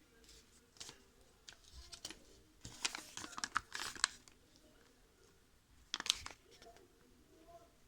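Irregular crinkling and rustling handling noises, in short crackly bursts that are loudest about three seconds in and again about six seconds in.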